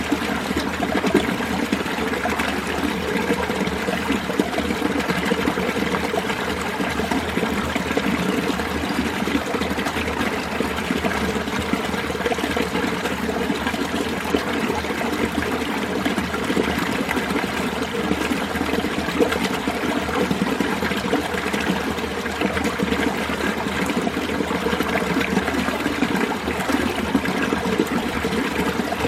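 Mountain valley stream running steadily: a continuous, even rush of flowing water.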